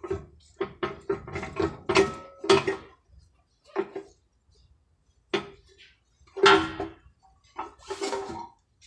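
Metal clanking and clinking: about a dozen sharp strikes on metal, each ringing briefly at the same pitch, most of them in quick succession over the first three seconds, then a few spaced-out knocks.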